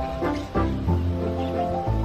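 Background music: held notes that change every half second or so over a steady deep bass.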